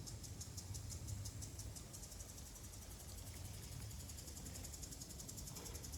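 Insects chirping in a fast, even pulsing rhythm, high-pitched and faint, over a steady low rumble.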